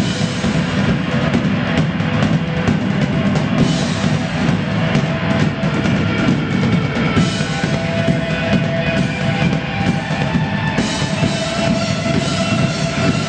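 A live rock band playing loudly, with a drum kit and electric guitar.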